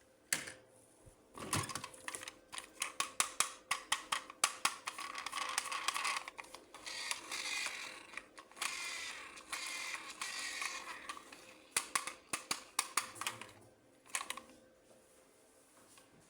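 Plastic toy parts and packaging being handled: a run of quick clicks and snaps, with a stretch of rustling in the middle.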